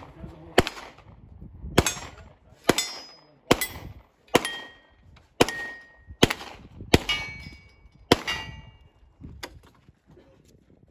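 Pistol shots at steel targets, about nine shots roughly a second apart, several followed by the brief ringing clang of a struck steel plate.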